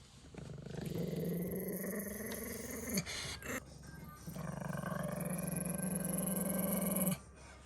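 Pekingese dog growling: two long, steady, low growls with a short break between them.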